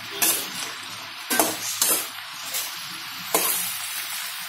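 Sliced onions sizzling steadily in hot groundnut oil in a large metal pan, with four short knocks against the pan.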